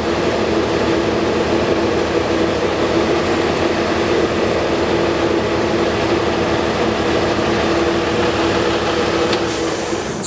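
Cummins ISB 6.7L inline-six diesel engine running steadily at idle, heard from the cab, during a cylinder cutoff test: the second cylinder's injector is shut off by the scan tool and later all cylinders are re-engaged.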